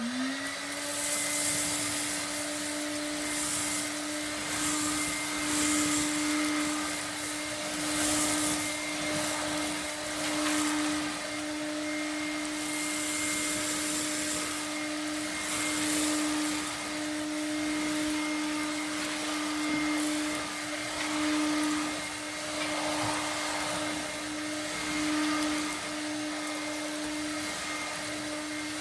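Vintage 1960s Hoover Hooverette cylinder vacuum cleaner switched on: the motor spins up within the first second to a steady hum with a rushing airflow. It keeps running while sucking up pudding rice, with repeated short bursts of hiss through the first half as the floor tool takes up the grains.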